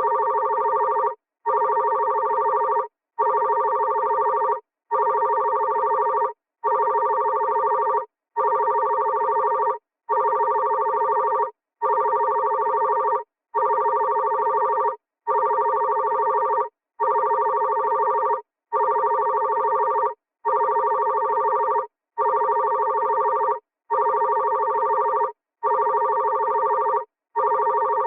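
Classic telephone ringing: long rings of a steady trill, each about a second and a half apart with a brief gap between them, repeating evenly.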